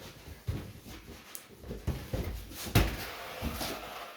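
Cardboard boxes being handled and shifted: irregular scraping, rustling and knocks, with one louder knock about two-thirds of the way through.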